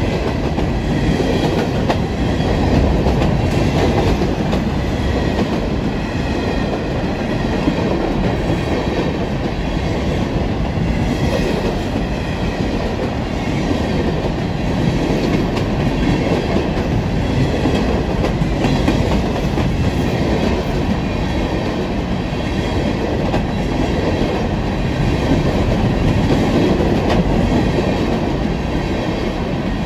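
Freight train of steel hopper cars rolling past close by: a steady rumble and clatter of wheels over the rail joints, with no pause between the cars.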